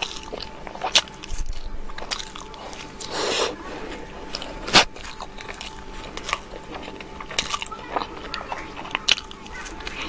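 Close-miked mouth sounds of biting and chewing a soft filled pastry, with scattered short sharp clicks and smacks, the loudest about five seconds in.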